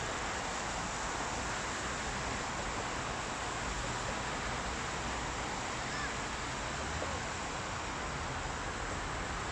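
Steady hiss of rain and of traffic on a wet road, with a faint short chirp about six seconds in.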